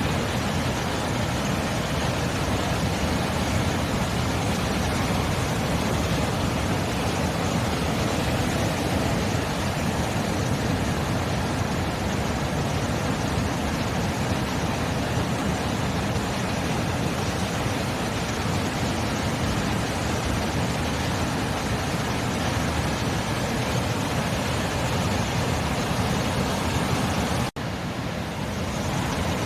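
Sea surf as a steady, even wash of noise with no distinct wave breaks. It cuts out for an instant near the end.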